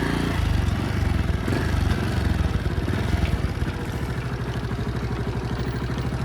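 Motorcycle engine running at low revs, its pulse settling into a steady, even idle about four seconds in.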